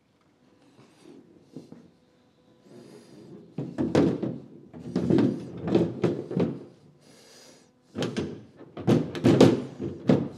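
A series of thunks and knocks as the MGA's boot lid is set onto the rear body and pressed down, in two clusters: the first starts about three and a half seconds in, the second near the end.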